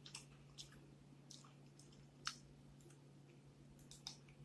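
Faint eating sounds from someone chewing fried chicken: a handful of short, wet mouth clicks and smacks, the sharpest a little past two seconds in.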